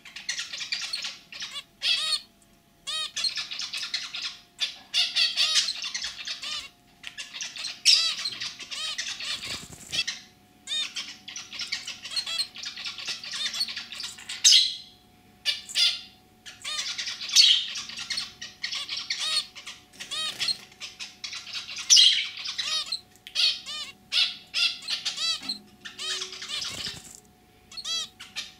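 Zebra finch singing: rapid bouts of short, high notes, each run lasting one to three seconds with brief pauses between.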